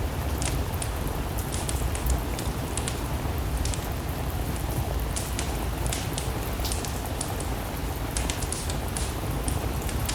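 Steady rain mixed with a wood fire crackling: a constant hiss and low rumble with irregular sharp pops scattered throughout.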